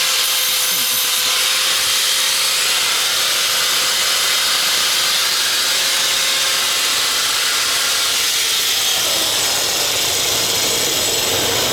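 Power grinder grinding down a welded metal shift lever to straighten it: a steady, continuous grinding hiss, its motor tone changing about eight seconds in.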